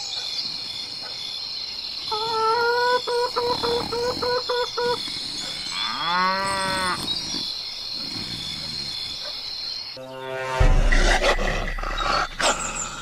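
Farm-animal sound effects: a run of about seven short, evenly spaced calls, then a single cow moo about six seconds in, over a steady high-pitched tone. About ten and a half seconds in, a loud animal call over a deep rumble cuts in.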